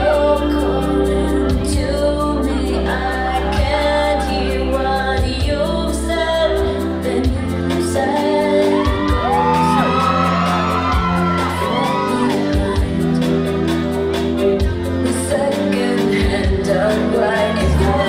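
Song with a singer and a steady bass line, playing continuously.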